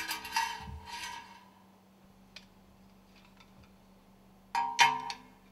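Steel scraper ring segments for a piston rod stuffing box clinking against each other and on the steel work table, each clink leaving a short metallic ring. A couple of clinks come at the start and about a second in, and a quicker cluster of sharp clinks about four and a half seconds in.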